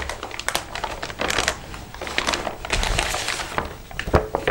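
Clear plastic parts bag crinkling and rustling as it is handled, with irregular small clicks from the tools and parts inside.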